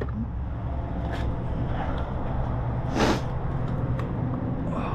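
Handling noise as a motorcycle rear wheel is worked up into place: a few light clicks and a short scraping rush about three seconds in, over a steady low rumble.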